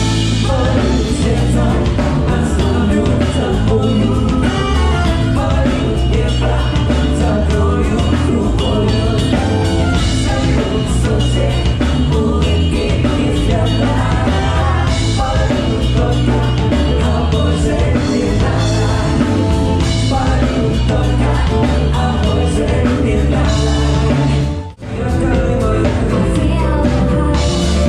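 Live pop-rock cover band playing: vocals over electric guitar, keyboards and drum kit with a steady beat. About 25 seconds in the music cuts off abruptly and a different song starts.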